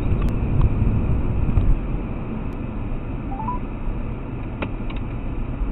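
Car engine and tyre noise heard inside the cabin through the dashcam's microphone while driving: a steady low rumble, a little louder for the first second and a half. A few faint scattered clicks and a short stepped electronic beep about three seconds in.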